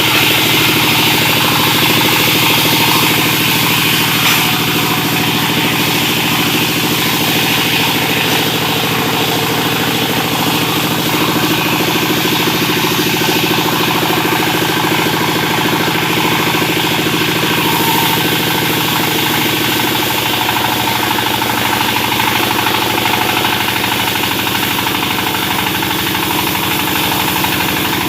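Sawmill machinery running steadily: the engine driving the saw runs at a constant speed, its note shifting slightly lower about twenty seconds in.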